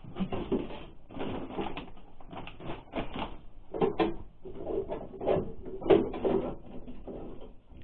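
Hands rummaging through gloves, bags and tools piled on a seat: irregular rustling, knocks and clinks as things are moved about.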